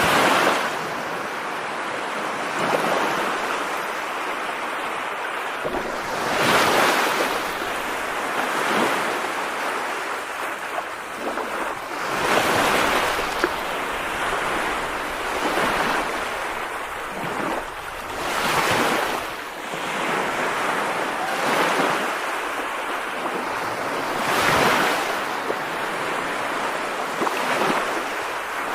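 Rain falling as a steady rushing hiss that swells and eases every few seconds, as in gusts.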